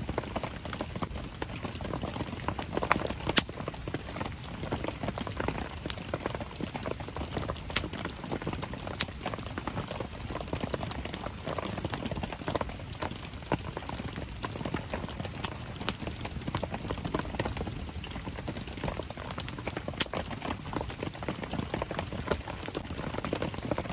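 Wood campfire crackling, with frequent sharp pops and snaps, over steady rain pattering.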